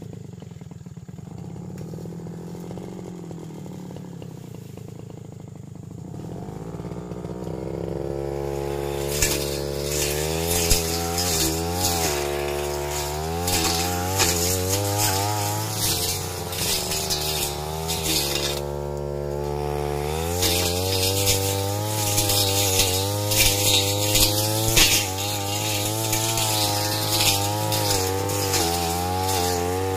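Backpack brush cutter engine running slowly and quietly, then revved up about a quarter of the way in. Its pitch wavers up and down as the blade cuts through thick brush. Revs drop back briefly about two-thirds through, then rise again for more cutting.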